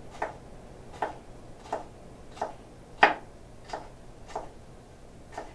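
A chef's knife dicing cucumber on a wooden cutting board: about eight unhurried knocks of the blade on the board, roughly one every 0.7 seconds, the loudest about three seconds in.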